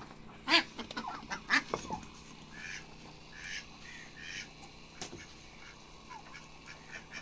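Ducks quacking: two louder calls in the first two seconds, then a run of short, evenly spaced quacks in the middle.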